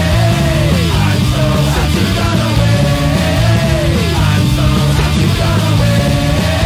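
Punk rock band playing at full tilt, with a melodic line that holds a note and then slides down, repeating about every three seconds.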